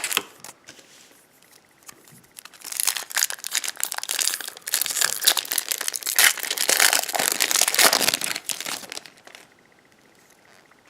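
Wrapper of a 2018 Topps Series 1 baseball card pack being torn open and crinkled in the hands, a dense crackling starting about two seconds in and lasting about seven seconds, after a few light handling clicks.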